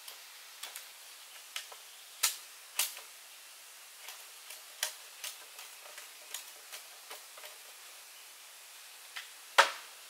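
Irregular sharp clicks and taps over a faint steady hiss. The loudest click comes near the end.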